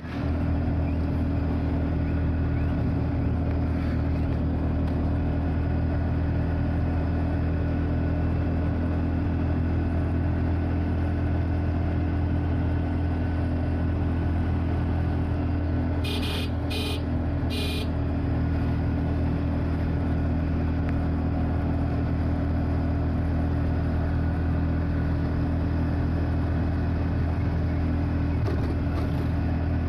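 Steady engine drone of a moving road vehicle, with three short horn beeps a little past the middle.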